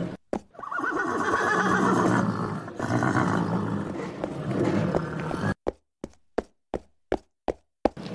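A horse neighing and snorting for about five seconds, then hooves clip-clopping: about eight sharp, separate strikes with silence between them.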